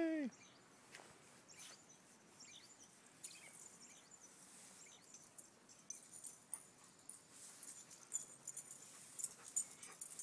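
Faint clicking and crackling of a dog gnawing on a wooden stick, getting busier in the second half.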